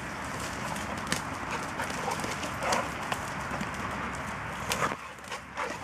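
A boxer and a black labrador playing together on a muddy dirt path: their paws scuffle and pad on the ground, with scattered sharp clicks throughout.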